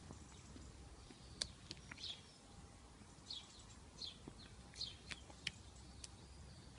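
Quiet outdoor background with four short falling chirps spread over a few seconds and several light, sharp taps, the loudest about one and a half seconds in.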